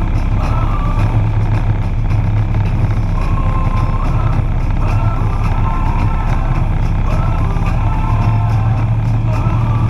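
A motorcycle engine running steadily at road speed, with wind rush, under music with a wandering melody.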